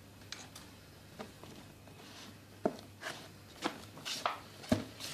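Cardboard shipping box being opened by hand: scattered taps and scraping rustles of the cardboard and its tape as the flaps are pulled open, with a sharp knock about two and a half seconds in and another near the end.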